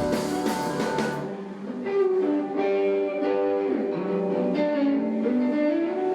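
Music: a band with guitar and drums, the drums dropping out about a second in and leaving guitar notes ringing on their own.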